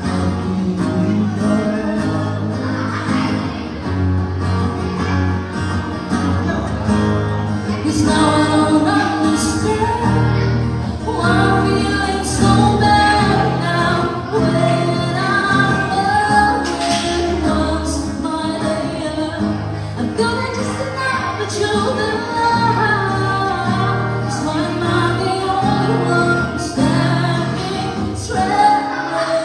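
Live acoustic duo performing a song: one vocalist singing into a microphone, accompanied by an acoustic guitar.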